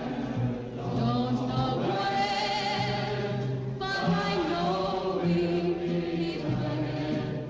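Soundtrack music of choral voices singing long, wavering chanted notes, with an abrupt change of notes about four seconds in.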